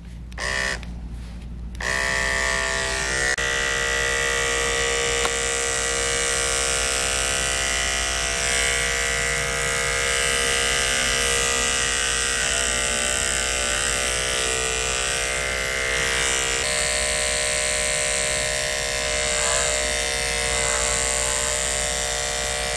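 Andis electric dog-grooming clipper, with a couple of brief bursts before it starts up about two seconds in, then running with a steady hum as its blade is worked through raw chicken skin.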